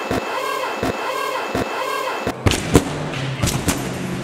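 Background music with a steady repeating beat that cuts off suddenly a little over halfway. A few sharp thuds and knocks follow.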